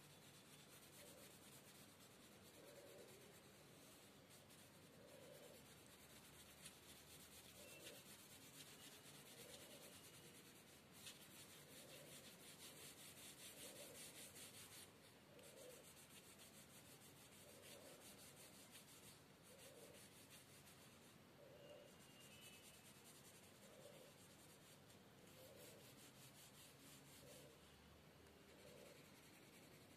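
Faint, steady scratching of a brown colouring pencil shading on paper in quick back-and-forth strokes.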